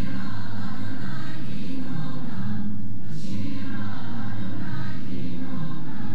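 Mixed swing choir of young men and women singing together in harmony, holding sustained notes, with a sharp hissed 's' sung together about three seconds in.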